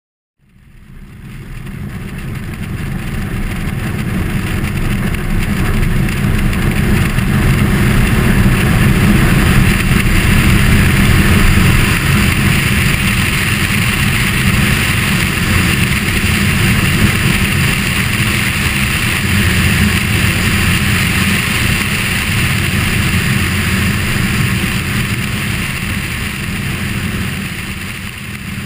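Cessna 172RG Cutlass's four-cylinder Lycoming O-360 engine and propeller running at takeoff power through the takeoff roll and lift-off, mixed with steady rushing airflow over a tail-mounted camera. The sound comes in suddenly about half a second in, builds over the first several seconds, and eases a little near the end as the aircraft climbs away.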